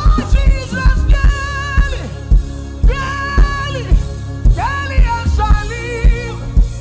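Gospel worship song: a band with a steady kick drum beat under a voice singing long, wavering held notes in three phrases.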